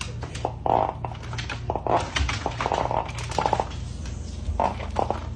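A dog making several short vocal sounds in a row, over a steady low hum.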